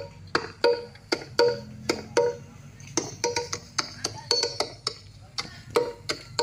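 Music with fast, sharp wood-block-like percussive hits, about three a second, each with a short pitched ring, played through a stack of PA loudspeaker cabinets.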